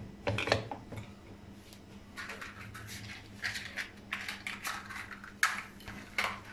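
Aluminium pressure cooker lid being twisted shut onto its pot, with sharp metallic clicks as the handles lock together, then scattered lighter clicks and taps.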